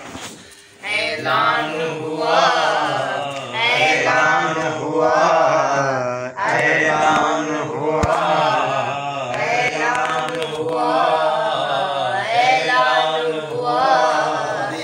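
A man's voice chanting devotional Urdu verse (a kalam in praise of Haidar) in long, melodic sung phrases, unaccompanied.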